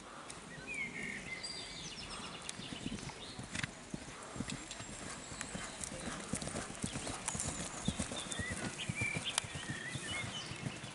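A horse cantering on grass turf, its hoofbeats thudding in a quick, even rhythm that grows louder as it approaches.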